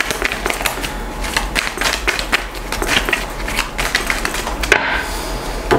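Tarot cards being shuffled by hand: a rapid, uneven run of light papery clicks as cards slide and slap against the deck, with one sharper snap near the end.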